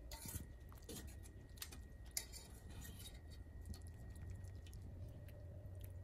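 A wire spider strainer tapping and scraping lightly against a stainless steel wok as dumplings are scooped out of hot water, a handful of faint clinks over a low steady hum.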